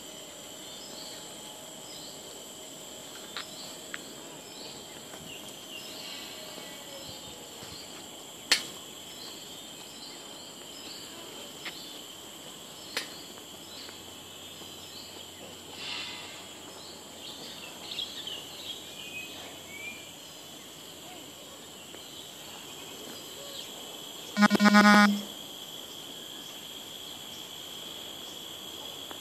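Insects drone steadily in two high, even tones, with short high bird chirps repeating about twice a second through the first half. Near the end a single loud, buzzy, pitched honk lasts under a second.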